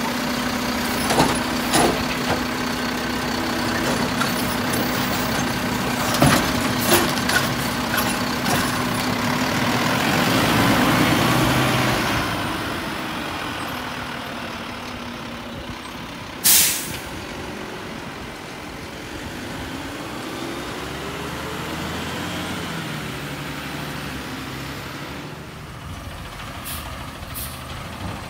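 Wayne Curbtender automated side-loader garbage truck dumping a cart with its hydraulic arm: several sharp knocks and clanks over the running engine, then the engine swells as the truck pulls away. About two-thirds of the way through comes one short, sharp air-brake hiss, and the engine runs on more quietly with rising and falling pitch as it drives off.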